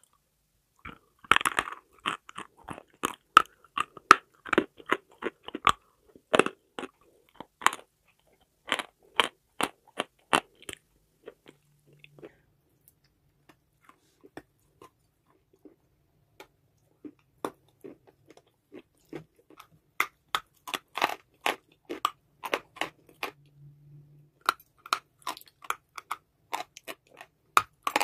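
Crisp, close-up crunching as a person bites and chews pieces of a dry chalky block. The sharp crunches come in quick runs, thin out for a few seconds about halfway through, then pick up again.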